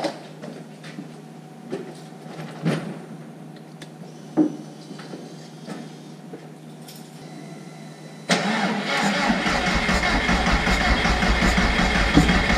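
A few scattered knocks and clicks, then about eight seconds in the turbocharged VW Jetta 1.8T engine suddenly fires and keeps running steadily. It is the car's first start in about two months, off a jump pack on a completely flat battery.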